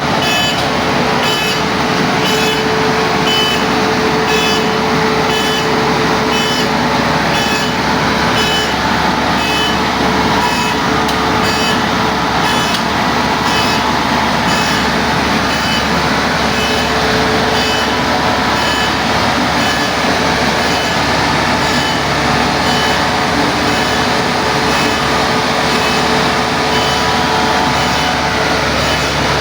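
A combine harvester's diesel engine running steadily under a reversing alarm that beeps evenly, about three times every two seconds.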